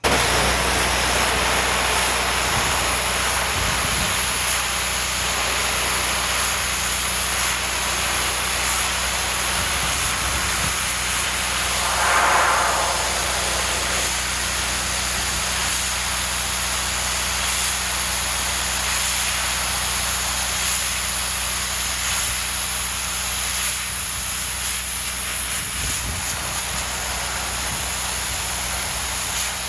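Petrol pressure washer running: a steady engine hum under the loud hiss of the high-pressure water jet, with a brief louder rush of spray about twelve seconds in.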